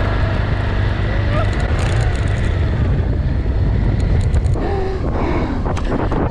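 Enduro motorcycle engine running steadily while riding through sand, with wind buffeting the microphone.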